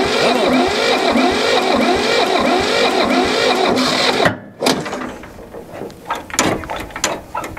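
Starter motor cranking the Hinomoto E230 tractor's diesel engine hard and steadily, a long-parked engine turned over on boosted jumper power without catching. The cranking cuts off suddenly about four seconds in, followed by a few light clicks and knocks.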